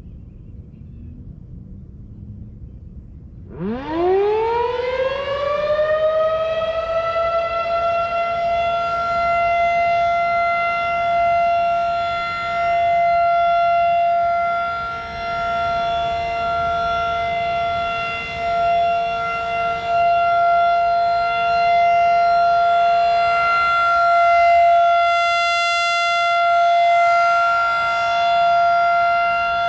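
A 1999 Federal Signal 2001-SRN tornado siren starting up about three and a half seconds in. Its pitch climbs steeply as the rotor spins up, then settles into a steady held tone, the alert signal. The loudness swells and fades slowly as the rotating siren head turns.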